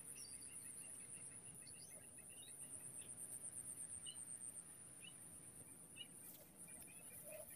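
Near silence filled by a faint, steady high-pitched insect trill, with a few faint bird chirps scattered through it.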